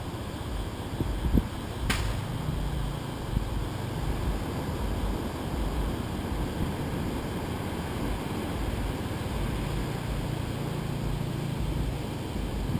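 Steady low rumble of wind and surf at the beach microphone. A single sharp click comes about two seconds in.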